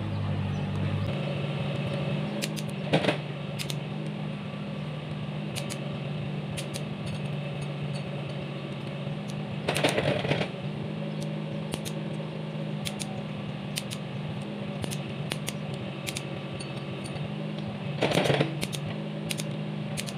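A steady mechanical hum from a running machine, its deeper low part dropping out about a second in, with three short knocks or clinks spread through it.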